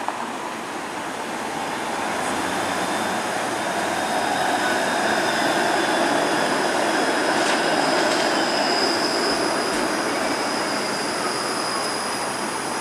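Toronto Flexity Outlook low-floor streetcar passing at street level, its wheels running on the rails. The sound builds for the first several seconds as the car comes alongside, and a thin steady high-pitched tone sounds over it through the middle and later part.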